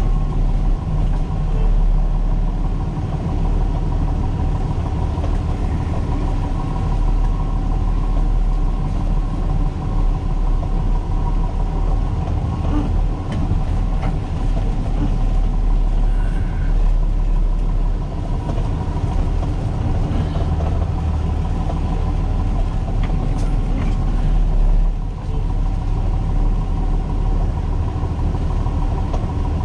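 Diesel engine of a Peterbilt 337 wrecker heard from inside the cab, running steadily under load while it tows a bus, a low drone with a faint steady whine above it.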